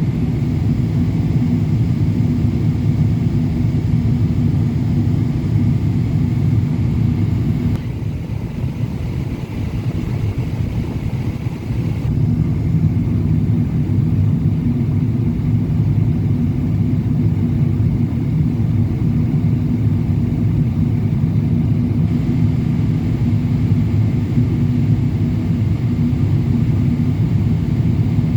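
Boeing 777-200LR airliner in flight: a steady low rumble of its GE90 engines and rushing air. It eases slightly about eight seconds in and comes back about four seconds later.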